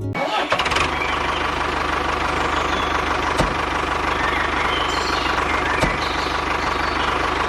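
Small engine running steadily at an even pace, with a fast regular pulse, and two brief clicks partway through.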